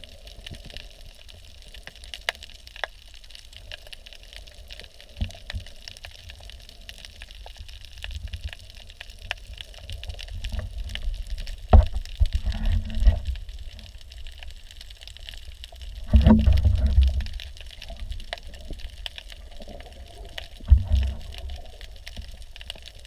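Water heard underwater through a GoPro's waterproof housing: a muffled, steady low rumble and hiss of moving water, with louder low sloshing surges about halfway through, again around two-thirds in, and near the end.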